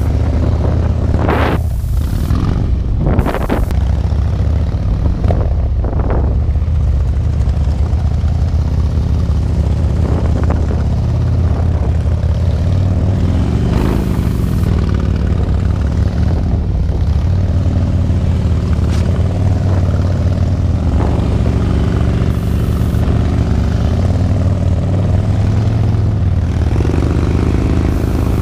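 Harley-Davidson V-twin motorcycle engines running at low speed, a steady low rumble. About halfway through the pitch rises and falls as a bike rides past close by.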